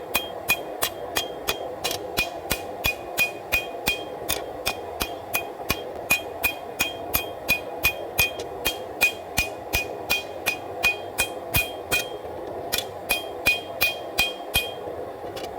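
Hand-hammer blows on a hot bar of W-2 steel on the anvil, about three a second with a short metallic ring after each, pausing briefly near the end and stopping just before it. Under them runs the steady noise of a forced-air propane forge burner.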